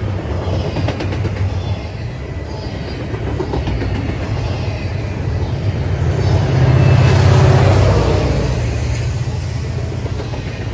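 Double-stack intermodal well cars of a CSX freight train rolling past, a steady rumble of wheels on rail that swells for a couple of seconds about seven seconds in.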